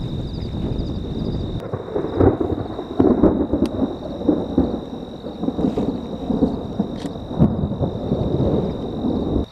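Thunder rumbling and rolling, swelling with sharp cracks about two seconds in and continuing in waves before cutting off suddenly at the end.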